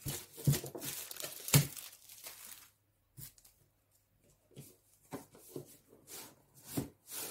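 Plastic shrink-wrap being torn and crinkled off a cardboard card box, with one sharp crack about a second and a half in. After that it goes quiet, apart from a few light taps and knocks as the box is handled.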